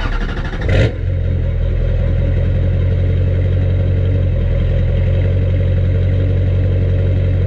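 LB7 Duramax 6.6-litre V8 turbodiesel idling steadily, after a brief louder burst in the first second.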